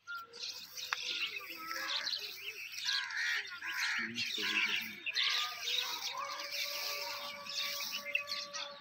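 Many small birds chirping, short overlapping calls one after another.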